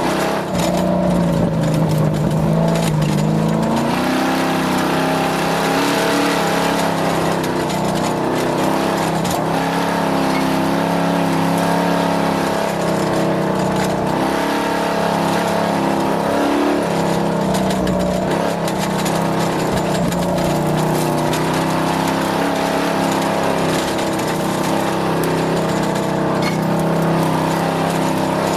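Vehicle engine running under way, its pitch wavering up and down a little, with a steady rushing noise over it.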